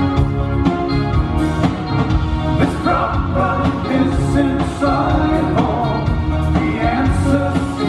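Live rock band playing, drums and bass guitar through the PA, with a man's lead vocal coming in about three seconds in.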